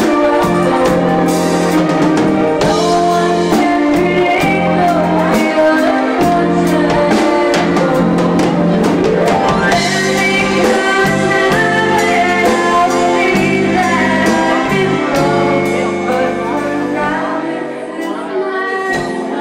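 A young woman singing live into a handheld microphone, backed by a band with a drum kit. Near the end the bass drops out and the music gets quieter.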